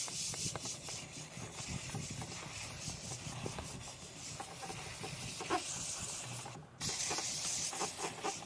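Karcher SC2 steam cleaner jetting steam on its high setting through a cloth-covered brush head that is scrubbed over a fabric car seat: a steady high hiss with the rub of the cloth and brush on the fabric. The hiss cuts out briefly near the end and comes straight back.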